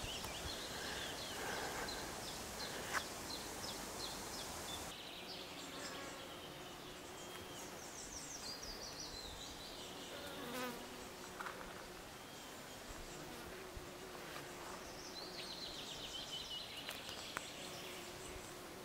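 A flying insect buzzing near the microphone, a faint steady hum that comes and goes from about five seconds in, with high chirping trills in the background.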